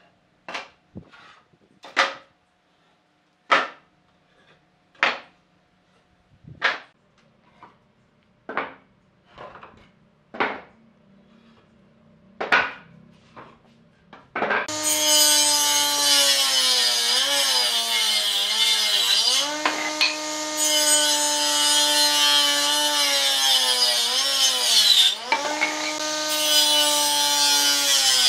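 A series of short sharp knocks on wood, about one every second and a half. About halfway an electric woodworking power tool starts up and cuts wood continuously, its motor whine sagging in pitch twice as it takes the load of a cut.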